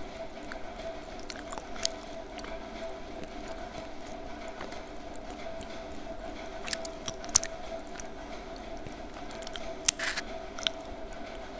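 Sparse crunching and chewing of a homemade slate-pencil lollipop, dried slate-pencil paste on a stick, bitten close to the microphone, with the sharpest crunches about two, seven and ten seconds in. A steady low hum runs underneath.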